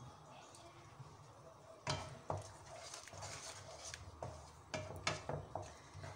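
Wooden spatula scraping and knocking against a wok while stirring and frying thick masala paste, in irregular strokes that come more often in the second half, over a low steady hum.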